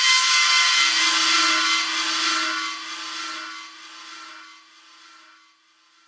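Metal screech sound effect: a harsh, many-toned metallic screeching with a steady lower tone beneath it, loud at first and then fading away over the last few seconds.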